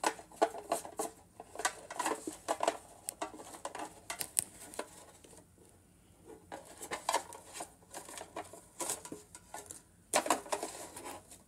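Trading cards being handled and set down on a tile floor: irregular light clicks, taps and scrapes, with a short lull about halfway through.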